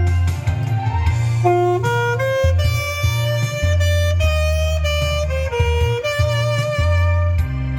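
Saxophone playing a slow melody of held notes that step from pitch to pitch, over an accompaniment with a steady bass line.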